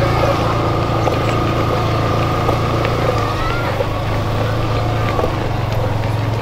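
Steady engine hum of a slow-moving vehicle, with a steady higher whine above it.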